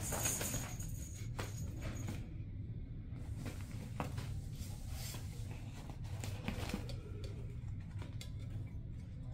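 Rustling of a pop-up nylon fabric play cube, with scattered soft scuffs and taps as kittens play in and around it. The rustle is loudest in the first two seconds, over a steady low hum.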